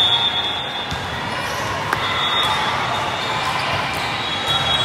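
Echoing din of a large indoor volleyball tournament hall: volleyballs being hit and bouncing on many courts at once, over a background of crowd chatter.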